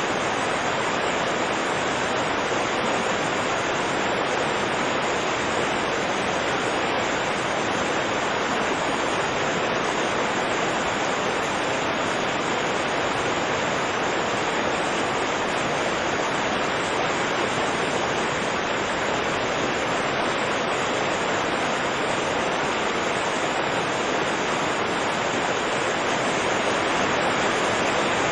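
A fast-flowing river rushing in a steady, unbroken roar of whitewater.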